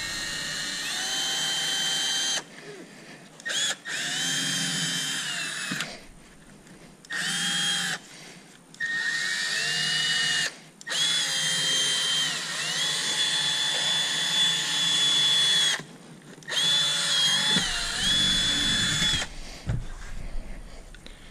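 Milwaukee cordless screwdriver driving in fasteners in about six runs of one to five seconds each. Its motor whine rises as it spins up and drops as it stops, with short pauses between runs.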